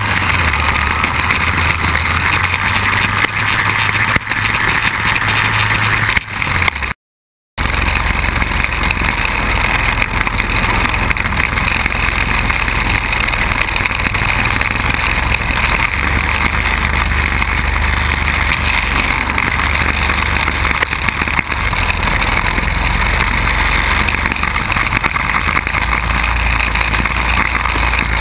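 Quad bike engine running steadily under way, heard from on board, mixed with a loud even wind noise on the microphone. The sound drops out for about half a second roughly a quarter of the way in.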